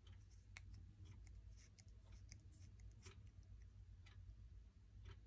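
Faint, scattered small clicks and taps from a vintage Palitoy Action Man's hard-plastic folding shovel as it is handled and its hinged blade is worked between the fingers, over a low steady hum.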